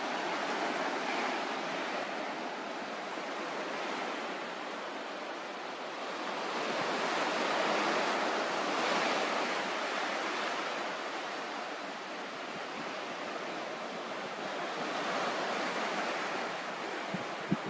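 Ocean surf breaking on a sandy beach: a steady wash that swells louder about halfway through and again near the end, with one short sharp click just before the end.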